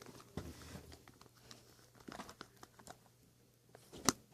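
Sticky, half-activated slime of Elmer's glue, glitter and detergent being mixed and squished, giving faint crackling and small clicks, with one sharper click near the end.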